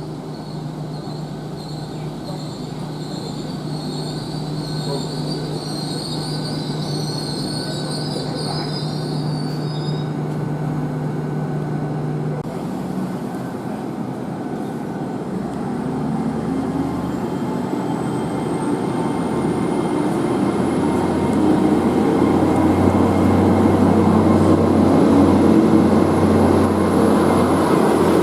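A train on the line, its wheels squealing high for the first ten seconds or so. Then the rail noise builds steadily louder, with a thin high whine that rises and holds.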